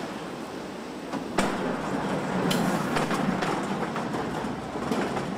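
Car assembly-line factory noise: a steady mechanical rumble and rattle with sharp metallic clanks, the loudest about a second and a half in.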